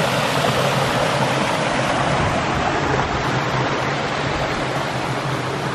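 Small woodland waterfalls and cascades falling and splashing over rock: a steady, unbroken rush of water.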